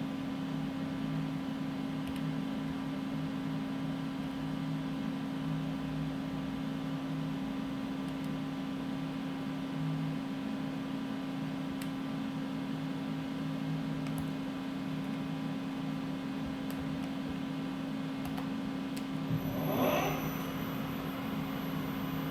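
Doosan Puma 4100LB CNC turning center running, a steady machine hum with one constant low tone and fainter steady tones above it. A short rising sound comes near the end.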